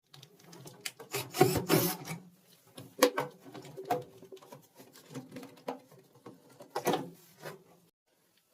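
Irregular clicks, knocks and rattles from hands working on a washing machine's drain pump and hoses, with light scraping between, the loudest knocks about one and a half, three and seven seconds in.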